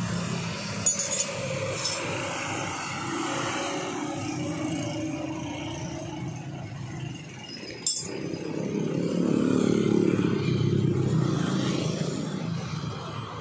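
Street traffic passing steadily, one vehicle swelling louder about ten seconds in. Two sharp clinks of hand tools, about a second in and again near eight seconds, as a wrench works at a scooter's front wheel.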